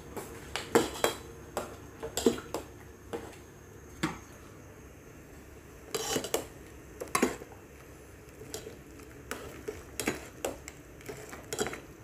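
Metal ladle clinking and scraping against a metal cooking pot as soup is stirred: irregular sharp clinks with a short lull midway.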